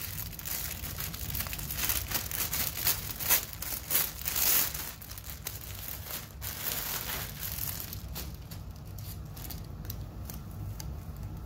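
Clear plastic poly bag crinkling as hands pull it open and slide a knit sweatshirt out. The crinkling is dense for about eight seconds, then thins to scattered rustles.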